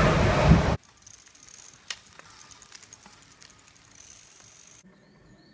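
Loud running rumble inside a suburban electric train carriage that cuts off less than a second in. It is followed by faint light clicking from a folding bicycle and a few short high chirps.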